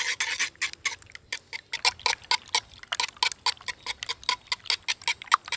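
Wire whisk beating eggs in a terracotta clay pot, its wires clicking against the pot in a quick, even rhythm of about six clicks a second as pepper and salt are mixed in.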